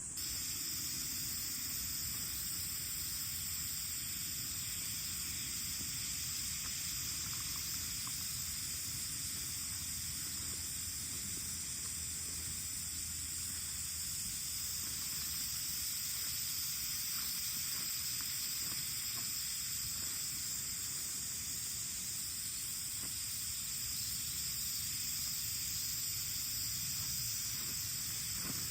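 A steady high-pitched hiss that does not change, over a faint low rumble, with a few faint ticks.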